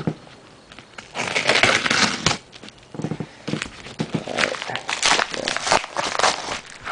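Paper mailing envelope being handled and opened by hand, crinkling and rustling in two stretches, the second longer.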